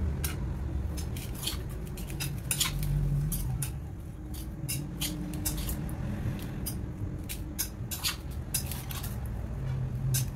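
A metal spoon stirring and tossing chopped vegetables and sprouts in a metal bowl, with many irregular clinks and scrapes of the spoon against the bowl.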